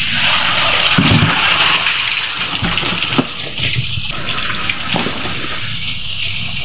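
Water sloshing and gushing as a hand scoop net is plunged into a tub packed with tamban sardines and lifted out, water pouring off the netted fish, with a dull knock about a second in.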